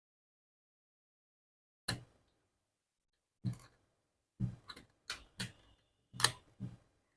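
Short plastic clicks and knocks from handling the opened casing and inner parts of an Omron digital blood pressure monitor. About eight separate sharp clicks start some two seconds in, and the loudest comes near the end.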